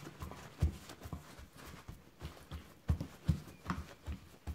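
Paper towel being pressed and patted against a whole raw fish on a wooden cutting board to dry it, making a series of soft, uneven thumps.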